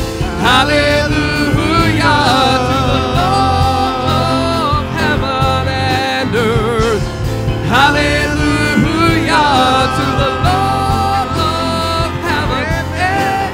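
Live church worship band and singers performing a praise song; voices hold long, wavering notes over the band.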